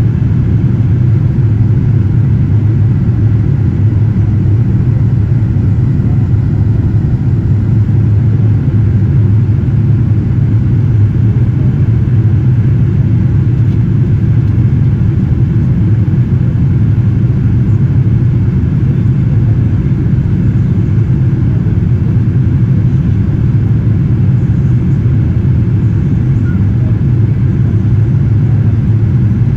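Steady low rumble inside the cabin of a Boeing 787-9 climbing out after takeoff: engine and airflow noise heard from a window seat over the wing.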